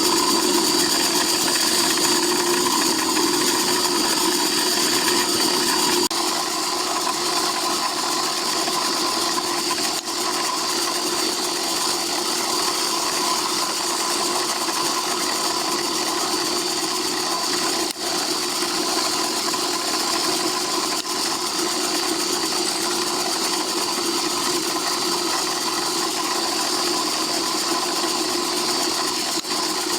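Small milling machine running steadily with a constant whine, its cutter machining the square flats on the end of a small turned spoke nipple, indexed on a dividing head. The level settles a little lower after about six seconds.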